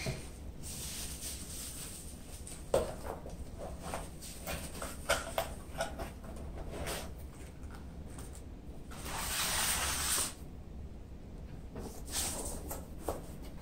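Packaging being handled on a wooden tabletop: a plastic bag crinkling and small cardboard boxes being opened, closed and set down, with scattered light taps and clicks. About nine seconds in comes a louder rush of rustling lasting about a second.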